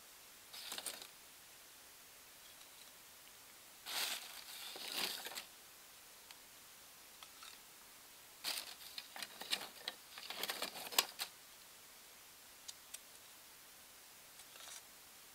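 Charcoal lumps being set and shifted with metal tongs in a kettle grill's bowl over twigs and crumpled paper. There are three short bouts of scraping, clinking and crinkling, then a few light clicks near the end.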